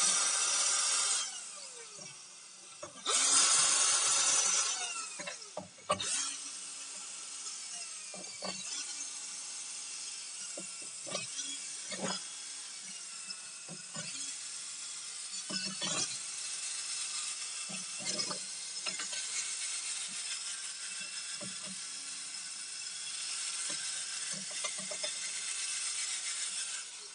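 Cordless electric screwdriver whirring in two short bursts in the first five seconds as it backs screws out of a laptop's plastic base, followed by scattered clicks and knocks of handling the screws and the driver.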